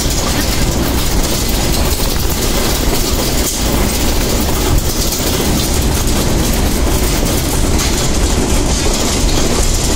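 Steady engine and road noise inside a moving vehicle's cabin at driving speed: a loud, low, even rumble with hiss above it.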